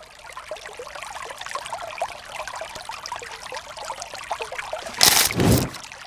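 Small stream trickling and babbling over rocks, a steady patter of many small water sounds. Near the end a sudden loud rush of noise lasts under a second.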